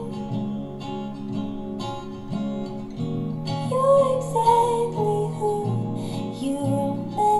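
Music with plucked acoustic guitar, joined by a singing voice about three and a half seconds in, played through a small bookshelf speaker driven by one channel of a Bose five-channel car amplifier from a Mazda RX-8 on a bench test.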